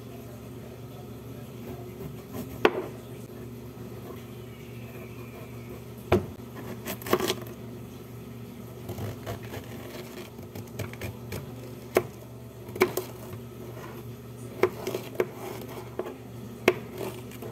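Kitchen knife cutting a zucchini on a plastic cutting board: about ten separate knocks of the blade hitting the board, spaced unevenly, over a steady low hum.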